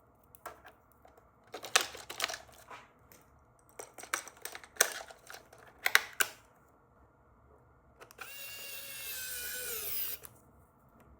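Plastic clicks and handling knocks, then a small electric motor whirs steadily for about two seconds and drops in pitch as it stops.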